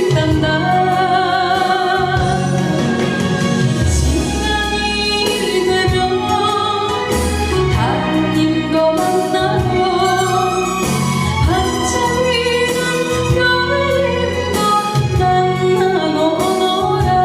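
Korean popular song: a woman singing a slow melody with wavering vibrato on held notes, over full band accompaniment with a steady bass.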